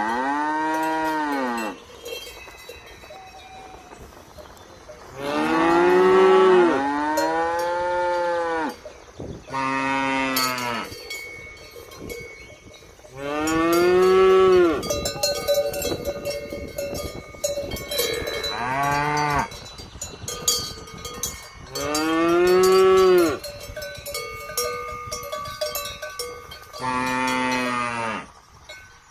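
Cattle mooing again and again, about eight long calls that rise and then fall in pitch, a few seconds apart, with two calls back to back near the quarter mark. Faint clicking sounds come between the calls.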